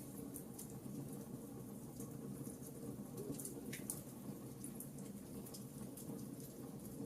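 Wood campfire crackling, with irregular small sharp pops over a steady low background.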